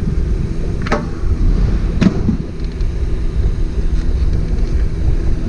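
Two short plastic clicks, about one and two seconds in, from the just-removed OEM fog light assembly being handled at the bumper. A steady low rumble runs underneath.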